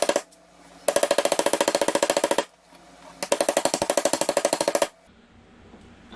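Rapid metal-on-metal hammer blows, about ten a second with a ringing tone, driving a transmission gear down onto its shaft through a pipe coupler used as a driver. The hammering comes in two bursts of about a second and a half, after a first burst stops just after the start.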